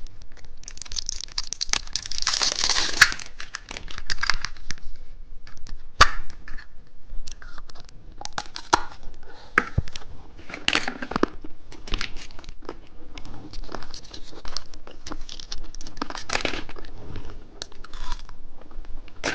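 Plastic candy wrapper being torn open, a long ripping stretch a second or so in, then crinkling and clicking as the packaging is handled.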